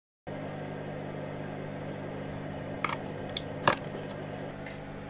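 DC barrel plug being pushed into the controller board of a plywood smart-home kit: a few light clicks and taps, the loudest a little under four seconds in, over a steady low hum.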